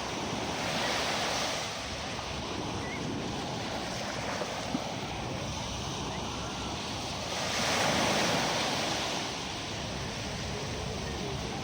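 Calm sea waves washing onto a beach: a steady wash of surf that swells twice, about a second in and again about eight seconds in.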